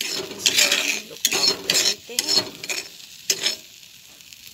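Steel spatula scraping and stirring egg bhurji around a pan, in a run of short strokes that stop about three and a half seconds in.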